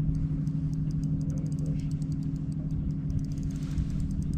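Steady low hum of a bass boat's bow-mounted trolling motor running, with a low rumble underneath.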